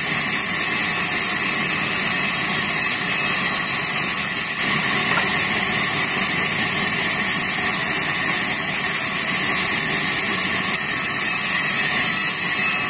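Large sawmill band saw running steadily, its blade ripping timber planks fed across the table. It makes a loud, even, hissing machine noise without letup.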